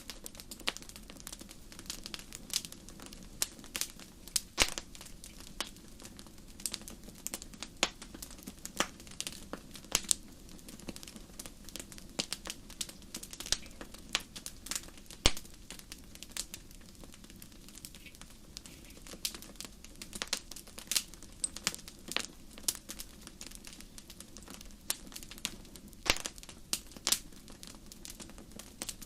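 Fire crackling: irregular sharp pops and snaps, several a second, over a steady low rumble.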